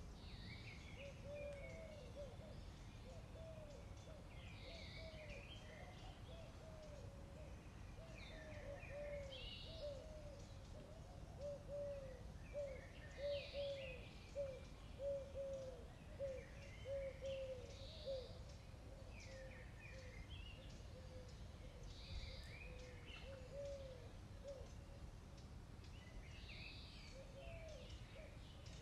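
Birds calling: a fast run of short, soft, low cooing notes, about two a second, loudest in the middle, with brief higher chirping phrases every couple of seconds, over a low steady background rumble.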